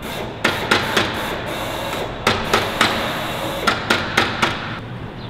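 Hammer blows on a sheet-metal aircraft skin panel clamped to a workbench: about ten sharp strikes in three quick groups of three or four.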